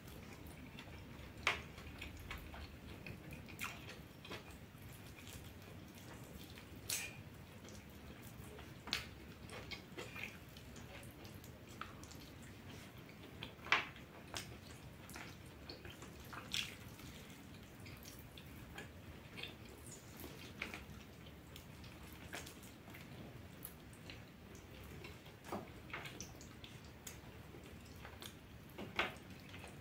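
A person eating goat meat off the bone with their hands: wet mouth smacks and chewing clicks at irregular intervals, the sharpest about halfway through.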